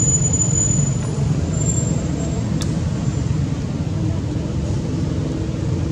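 Steady low background rumble with no clear rhythm, and a single faint click about two and a half seconds in.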